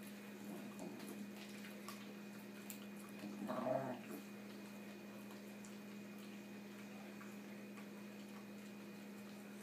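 Corgi chewing and mouthing a chew it is guarding from the other dog: faint clicks and wet mouth sounds, with one short low growl about three and a half seconds in.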